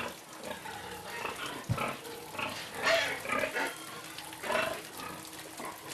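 Pigs grunting in a string of short calls, the loudest about three seconds in and again about four and a half seconds in.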